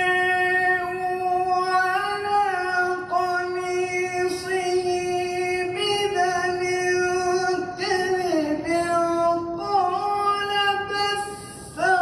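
A male Qur'an reciter's voice in melodic qiraat, drawing out the end of a verse in long held notes with slow ornamental turns in pitch. Near the end the note breaks off briefly for a breath and a new phrase begins.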